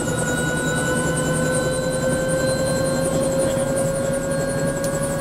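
Bell 206 JetRanger's Allison 250 turboshaft engine and rotor system running at close quarters in the cockpit. A steady turbine whine rises slowly in pitch as the engine and rotor spool up after start. A high pulsing repeats about four or five times a second.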